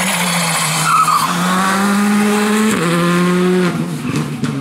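Škoda Fabia R5 rally car's turbocharged four-cylinder engine running hard at high revs, its pitch stepping up and down with gear changes and lifts, with a brief tyre squeal about a second in.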